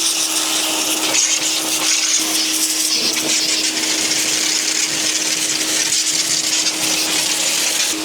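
Compact electric pressure washer spraying: a steady motor-and-pump hum under the loud hiss of the high-pressure water jet hitting a surface.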